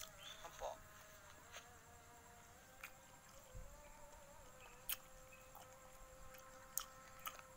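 Faint, steady insect buzzing that wavers a little in pitch, with a few sharp clicks.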